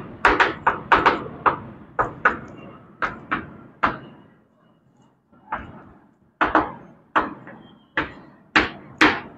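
Chalk tapping and scraping on a blackboard as words are written: a string of sharp taps, two or three a second, with a brief pause about halfway.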